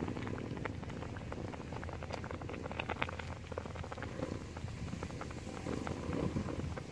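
Whole fish cooking in a pot of bubbling liquid: a steady bubbling with many small irregular pops and crackles.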